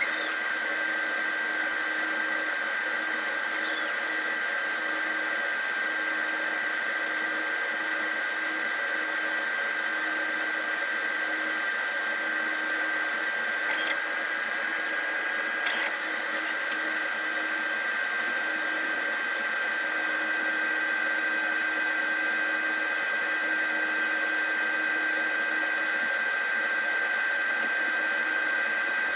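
Glowforge Pro laser cutter running a job on acrylic: a steady whir of its fans and motors with a high, steady whine, and a couple of faint ticks about halfway through.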